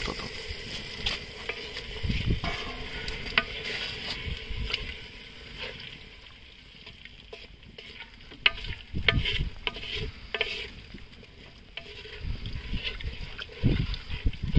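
A spoon stirring and scraping through frying mutton in a cooking pot, over a steady sizzle, with scattered sharp clicks of the spoon against the pot.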